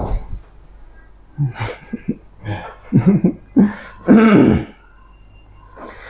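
A man's short throaty coughs and grunts, about five bursts spread through the middle seconds, with quiet gaps between them.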